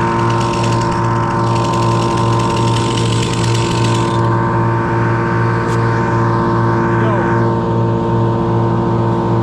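An engine running steadily at constant speed, with a low throb pulsing a couple of times a second.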